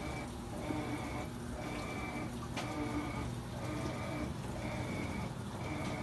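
Steady machine hum with a rushing noise, and a faint high tone that pulses on and off about once a second; a single click about two and a half seconds in.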